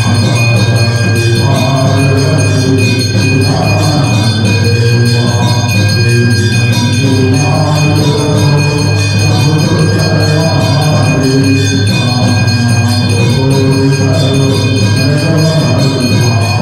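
Hindu temple aarti sung in chorus, with temple bells ringing steadily over the singing.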